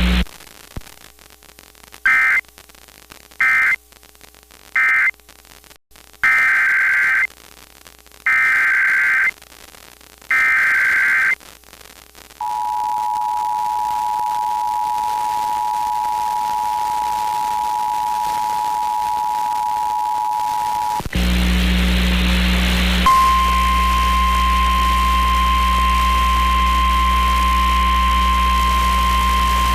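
Emergency Alert System tones: six short bursts of SAME digital data, then the two-tone attention signal held for about eight seconds. After a moment of radio static with hum, a NOAA Weather Radio 1050 Hz warning alarm tone begins and keeps sounding.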